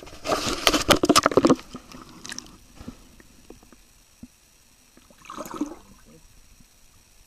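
Water splashing and sloshing for about a second and a half as hands and a fish move in a creek, then quiet, muffled gurgling heard with the microphone under the water, with a short swell of gurgling about five seconds in.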